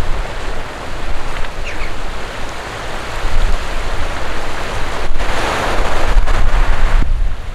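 Wind buffeting the microphone over the wash of a choppy sea, with a louder rush of noise about five seconds in that lasts around two seconds.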